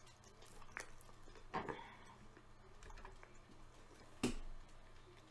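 A person chewing a bite of pizza with the mouth closed, with a few sharp clicks, the loudest about four seconds in.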